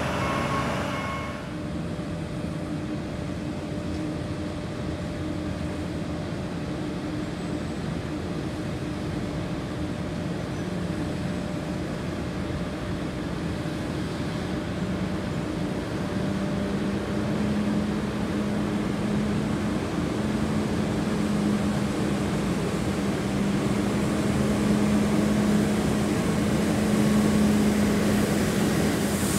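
Heavy diesel road-construction vehicles running at a repaving site, a steady low engine drone that grows louder through the second half as a large machine approaches. A reversing beeper stops about a second in.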